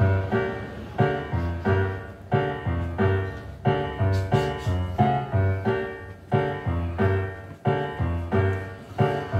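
Piano music: an even run of struck notes, about two or three a second, each fading before the next.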